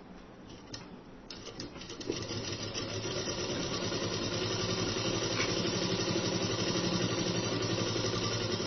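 Merritt sewing machine stitching a seam: a few separate clicks and stitches in the first two seconds, then running continuously at a fast, even rhythm.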